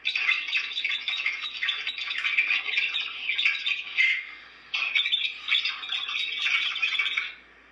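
Garbled, squawking electronic noise from a recorded phone line, choppy and crackling, put forward as a possible paranormal TCI message. It breaks off for about half a second around four seconds in, resumes, then stops shortly before the end.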